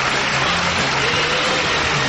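Audience applauding, steady and sustained, over show music with a low bass line.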